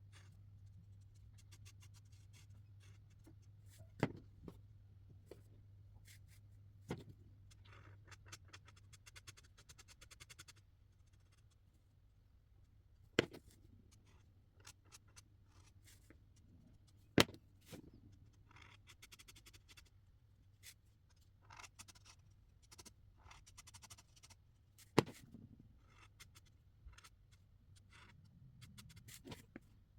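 Marker tips scratching across paper in short bursts of quick strokes, with five sharp clicks between them. A faint low hum runs under the first third.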